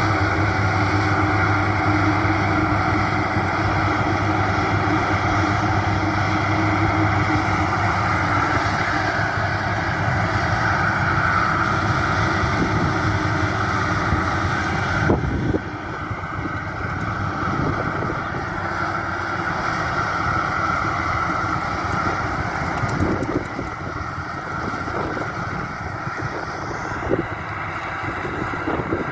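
Maxxi Bimo 102 rice combine harvester running steadily while harvesting, its engine and machinery a constant mechanical sound. About halfway through, the sound cuts suddenly to a quieter, more uneven version of the same machine.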